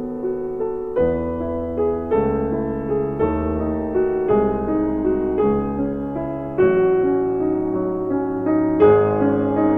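Background music: a gentle piano piece, with new chords struck about once a second over a bass line.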